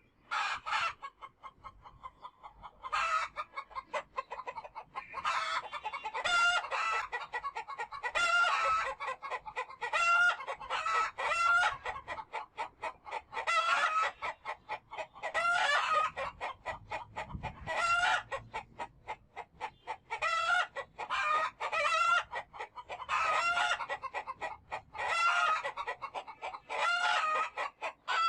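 Chickens clucking and calling: many short calls in quick, nearly continuous runs, with a brief lull between about one and three seconds in.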